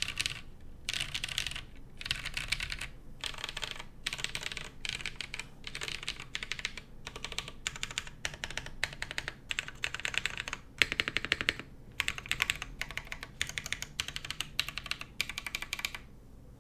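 Typing on a Noxary 280 mechanical keyboard with lubed Holy Panda tactile switches, GMK keycaps and a polycarbonate plate: rapid keystrokes in short bursts with brief pauses between them. The typing stops shortly before the end.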